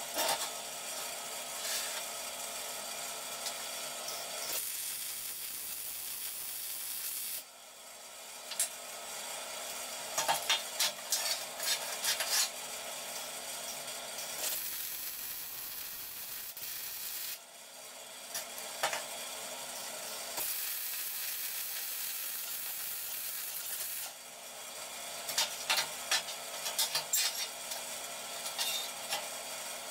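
MIG welder arc crackling and hissing in short runs as steel box-section is tack-welded, with clinks of the steel piece being handled and repositioned between welds.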